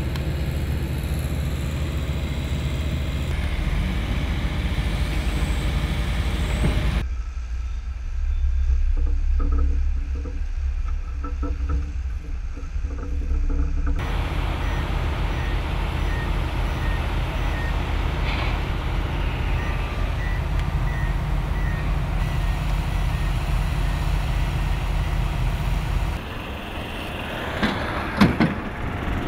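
Heavy construction machinery running with a steady low engine rumble. From about halfway through, a reversing alarm beeps steadily, about one and a half beeps a second. Near the end there is a brief louder sound.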